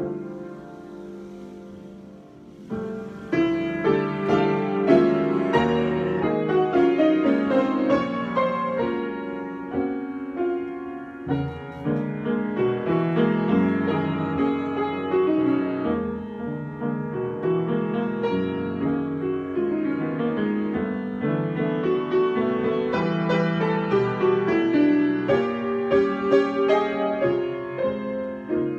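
Solo piano improvisation: a soft, lingering chord for the first few seconds, then fuller playing of overlapping struck notes and chords from about three seconds in.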